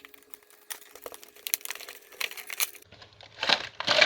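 Toy box being opened: plastic packaging crinkling, with small clicks and scrapes, then a few louder rustles near the end.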